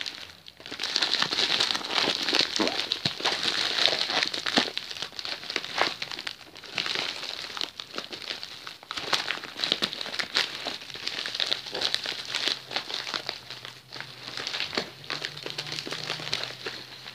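Plastic mailer bag and packaging crinkling and rustling as hands handle and pull it open, a dense run of small crackles that rises and falls in loudness.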